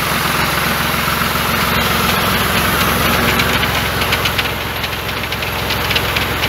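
Başak 2043 tractor engine running steadily, driving the D120 pump of a Doğanşahin 1000-litre sprayer, under a loud steady hiss of the high-pressure spray (rated at 60 bar). From about four seconds in, a fast run of sharp clicks joins it.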